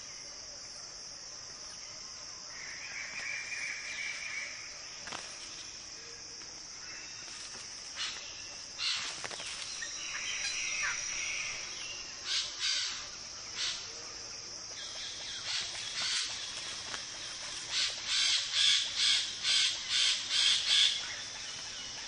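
A displaying flock of Wallace's standardwing birds of paradise giving harsh, crow-like calls. The calls come singly at first, then in a quick run of about seven near the end, over a steady high drone of insects.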